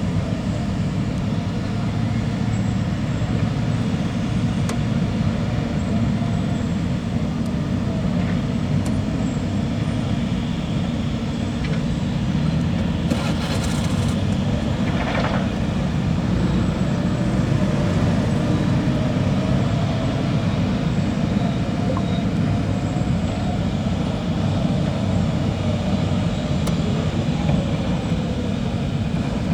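Steady low engine rumble with no clear change, and a short burst of hiss about halfway through.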